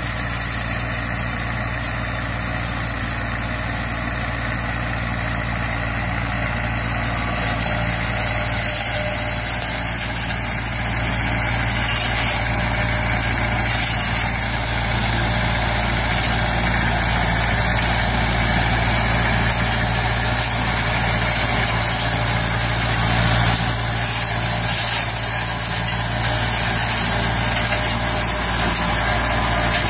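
Goldoni Aster 45 compact tractor's engine running steadily under load, driving a rear-mounted Sicma TE 160 flail mower that shreds grass, with a steady high whir and occasional crackles from the cutting.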